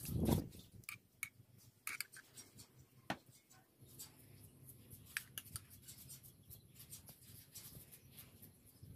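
Irregular light clicks and taps of a metal spoon and glass bowl being handled as chili sauce is poured and spooned over sliced beef on a plastic tray, with a louder low knock in the first half-second.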